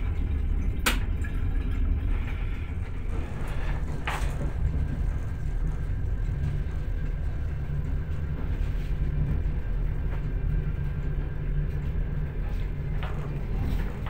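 Passenger train carriage running on the rails, a steady low rumble heard from inside the car, with two sharp clicks about one second in and about four seconds in.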